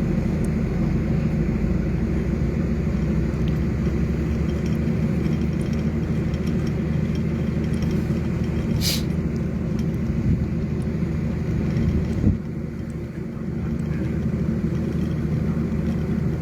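A steady low engine drone, such as a nearby machine running on site. There is a brief high squeak about nine seconds in, and a thump a little after twelve seconds, after which the drone is quieter for a second or two.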